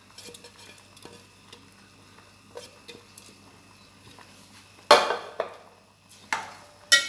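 Metal spoon knocking against an aluminium cooking pot four times in the last two seconds while stirring rice into boiling water, each knock sharp and briefly ringing.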